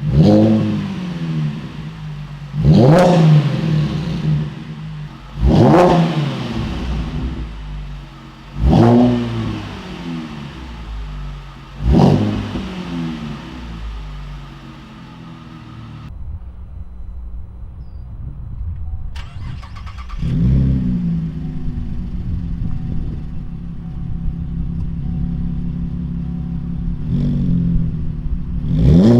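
2010 Chevrolet Camaro's 3.6-litre V6 through its exhaust, blipped from idle: five sharp revs about three seconds apart that rise quickly and fall back. After an abrupt change about halfway, it idles, with two more blips later on.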